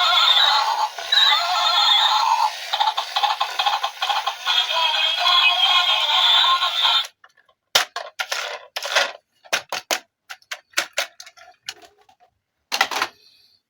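A battery-powered electronic toy playing its sound effect through a tiny speaker, a tinny, synthetic music-and-voice sound with no bass, which cuts off suddenly about seven seconds in. Then handling noise of the plastic toy: scattered clicks and rattles.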